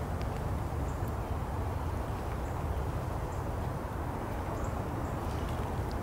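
Steady outdoor ambient noise, mostly a low rumble, with a few faint, short high clicks scattered through.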